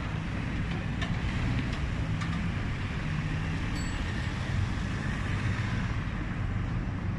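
City street traffic: motor vehicle engines running nearby, a steady low hum under a hiss of road noise.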